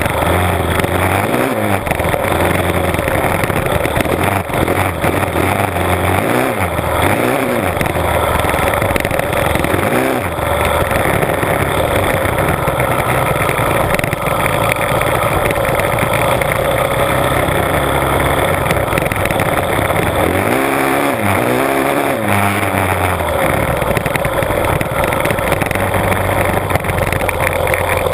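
Honda CRF450R's single-cylinder four-stroke engine under way on a dirt trail, revs rising and falling repeatedly with the throttle and gear changes, heard from a camera on the front mudguard.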